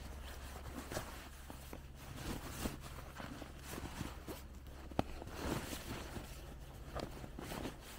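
Rustling and scraping of rucksack fabric as a sleeping bag is stuffed into the bottom compartment of a large rucksack, with small knocks and a sharp click about five seconds in.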